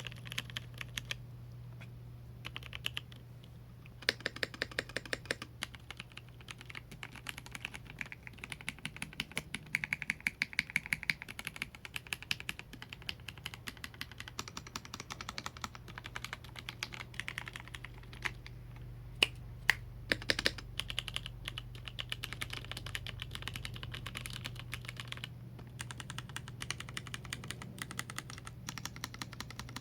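Typing on a Yunzii Keynovo IF98 mechanical keyboard with brown (tactile) switches: fast runs of key clacks with a few short pauses. A low steady hum sits underneath.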